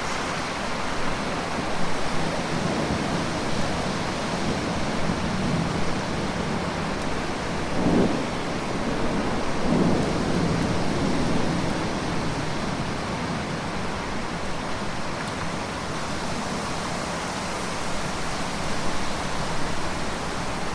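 Steady heavy rain falling, with low rumbles swelling up twice around the middle.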